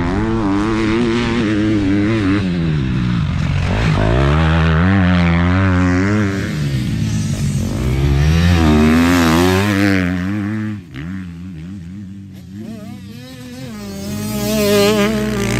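Motocross dirt bike engines revving, the pitch rising and falling again and again as the throttle is opened and closed. About eleven seconds in the sound drops quieter for a couple of seconds, then swells again near the end.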